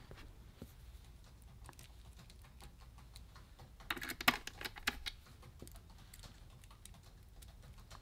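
Faint scattered clicks and ticks of a small Phillips precision screwdriver and tiny screws being set loosely into a laptop's metal chassis. A short run of sharper clicks comes about four seconds in.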